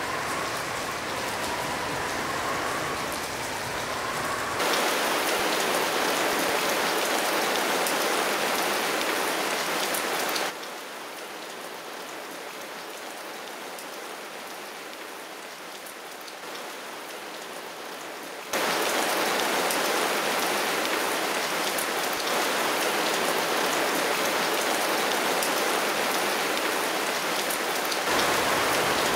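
Heavy rain hissing steadily. It drops abruptly to a quieter hiss for about eight seconds in the middle, then comes back at full strength.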